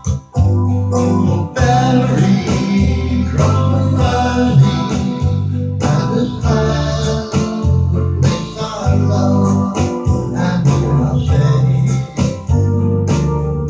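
Music: guitar over a bass line stepping between notes in a steady rhythm.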